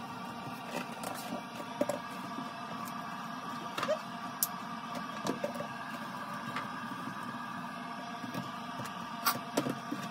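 A steady hum with a few light, scattered clicks and taps over it.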